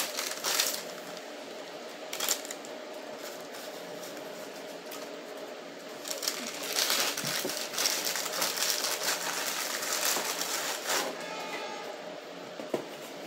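A thin plastic bag crinkling and rustling as it is handled, in irregular spells that are busiest in the second half.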